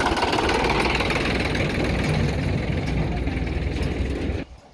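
Sonalika DI-745 III tractor's diesel engine running close by with a steady, knocking clatter. The sound cuts off abruptly near the end.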